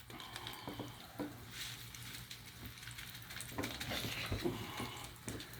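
A toy volcano's chemical reaction fizzing and crackling faintly, with scattered small pops.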